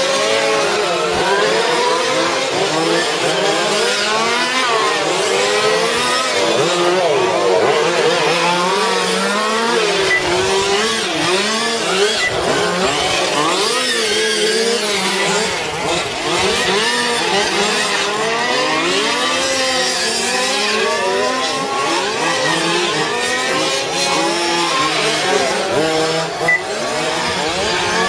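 Several radio-controlled racing cars running laps together. Their small motors each rise and fall in pitch as they speed up and slow for the corners, the sweeps overlapping without a break.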